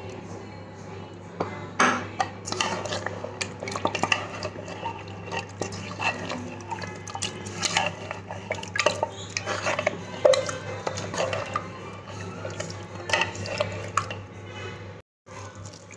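A spoon stirring chicken masala and yogurt in a pot, with frequent irregular knocks, clinks and scrapes against the pot, over a steady low hum. The sound cuts out briefly near the end.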